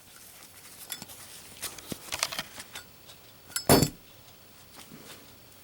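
Zippo lighter being handled, light metallic clicks and clinks of the steel case, then one louder sharp metal clack about two-thirds of the way in as the lighter's hinged lid comes down in a drop test that succeeds on this second try.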